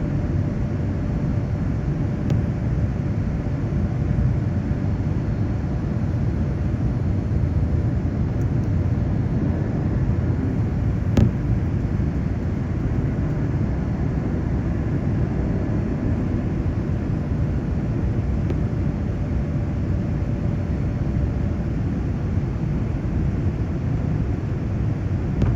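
Boeing 787 airliner cabin noise in flight: a steady low rumble of engines and rushing air. A single sharp click about eleven seconds in.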